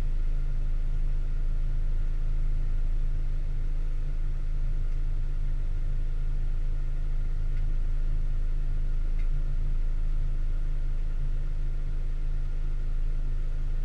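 A convertible sports car's engine idling steadily, an even low rumble.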